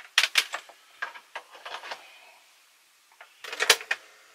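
Light clicks and knocks of cables and plugs being handled, then near the end a quick cluster of sharp mechanical clicks as the piano-key buttons of a Philips N2234 cassette recorder are pressed down, after which a faint steady hum starts.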